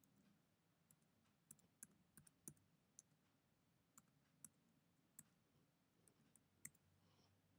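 Computer keyboard being typed on: a dozen or so faint, irregularly spaced keystrokes.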